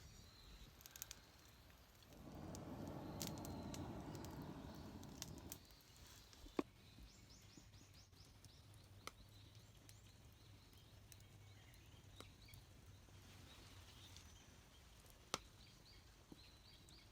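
Quiet open wood fire with scattered sharp crackling pops, and birds chirping faintly. About two seconds in, a rougher rushing noise swells and lasts about three and a half seconds.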